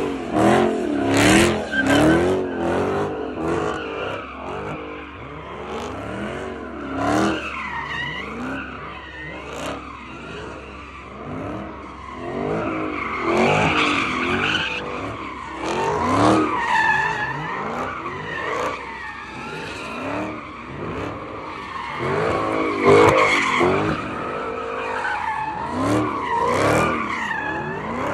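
A car doing donuts, its tires squealing in a wavering pitch while the engine revs up and down over and over as it slides in circles.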